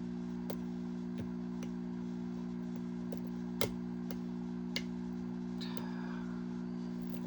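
Irregular small metallic clicks of a lock pick and tension wrench working the pins inside a Goal Z pin-tumbler lock, the loudest a little past halfway, over a steady low hum.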